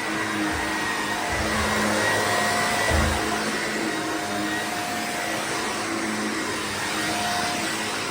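Shark vacuum cleaner running steadily on carpet, a constant rushing hum with a steady whine on top, with a few low bumps in the first three seconds as it is pushed along.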